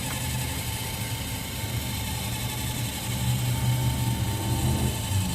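Motor of a remote-controlled boat spotlight whirring as it turns the light to the right, a steady low hum that swells about three seconds in and drops near the end as the light reaches its stop.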